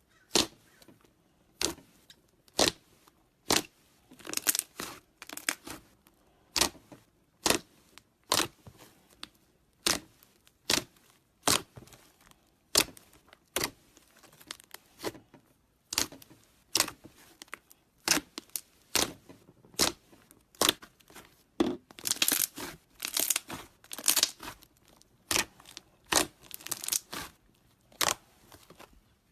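Slime being mixed, giving a run of sharp, sticky pops and clicks about once or twice a second, with denser crackling stretches in between.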